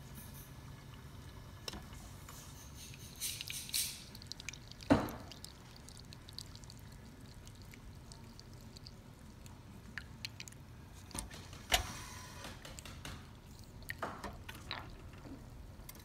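Espresso trickling from the two spouts of a Zacconi espresso machine's portafilter into a glass shot cup during a test shot, over a steady low background. A few sharp knocks or clicks break in, the loudest about five seconds in and another near twelve seconds.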